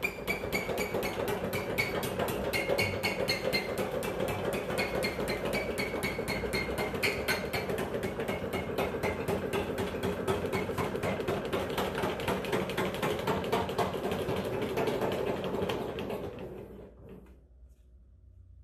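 Sheet metal flanging machine running with a rapid, even mechanical clatter as a sheet steel panel is fed through it to turn a flange along its edge. The clatter fades out and stops near the end.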